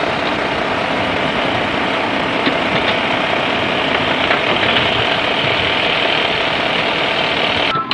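A loud, steady engine running sound, most likely a heavy-machine engine sound effect laid over play with plastic toy construction vehicles. It drops out briefly near the end.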